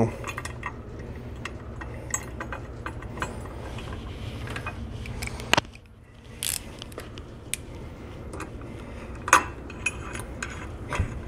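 Light metallic clinks and taps as steel bolts, spring washers and a ratchet are handled against a Lambretta's aluminium chain case cover and kickstart ramp while the ramp bolts are being fitted. A few sharper clicks stand out over a low steady hum.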